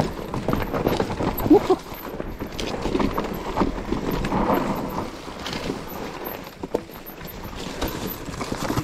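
Mountain bike rolling down a rough, stony trail: tyres crunching over rocks and the bike rattling with a dense run of irregular knocks and clicks.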